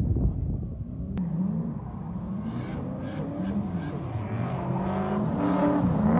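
Drift cars' engines revving up and down over and over as they slide, with short bursts of tyre squeal.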